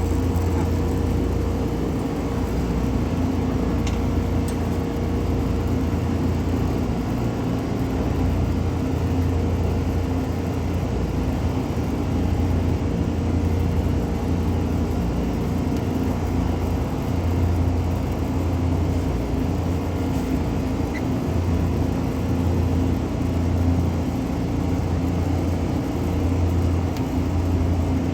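Steady low mechanical hum of running machinery, with a constant pitch and no change in level.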